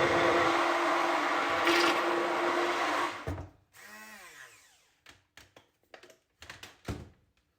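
Electric kitchen mixer running steadily, then switched off a little over three seconds in, its motor whining down in pitch as it spins to a stop. Several light clicks and knocks follow.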